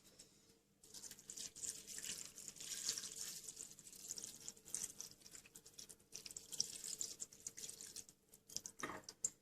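Water poured into a cooking pot packed with fresh thyme, splashing and trickling for about seven seconds from about a second in, as more water is added for making thyme water. A short knock near the end.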